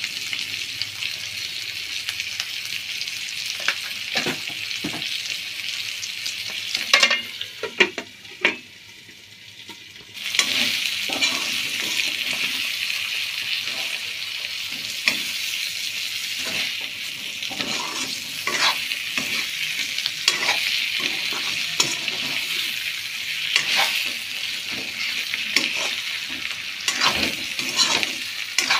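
Pork pieces and onion sizzling in oil in a metal kadai, stirred with a steel spoon that scrapes and clinks against the pan. After a few sharp clinks about a third of the way in, the sizzle drops away for about two seconds, then comes back.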